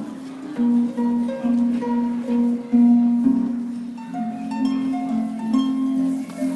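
A harp played solo: plucked notes, with a low accompaniment moving under a higher melody and new notes about twice a second.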